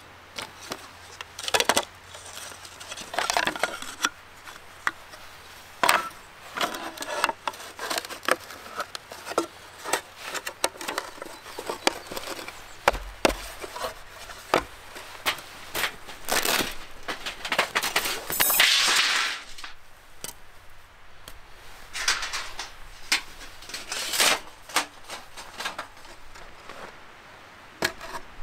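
Thin wooden boards clacking and knocking together as a small slot-together wooden camp table is handled and assembled, in irregular sharp knocks, with one longer scrape about two-thirds of the way through.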